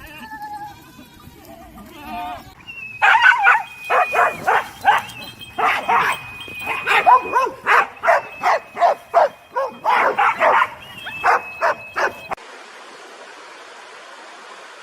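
Animal calls: a rapid run of short, loud cries over a thin high steady tone, stopping abruptly about twelve seconds in. A steady rushing noise follows.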